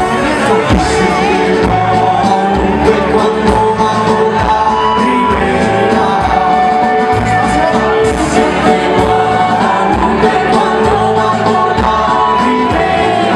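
Live band playing amplified dance music through a PA, with sung vocals over drums and electric guitars and a steady beat.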